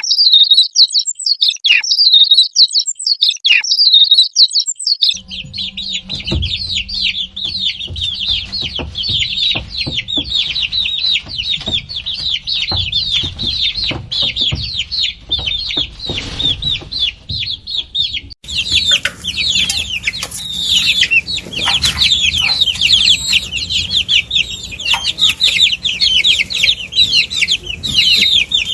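Baby chicks peeping: a few separate high peeps at first, then a dense, continuous chorus of many chicks cheeping together from about five seconds in. The chorus changes abruptly near the end, with more background noise behind it.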